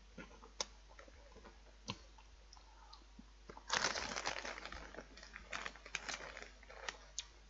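Crunchy baked potato snack (Transform A Snack) being bitten and chewed: a few sharp clicks, then a loud dense crunch a little under four seconds in, followed by scattered crackling chews.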